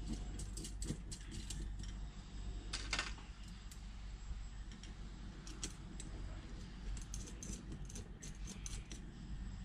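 Light metallic clicks and clinks of small throttle-linkage parts being handled and fitted by hand, irregular and scattered, with one louder click about three seconds in.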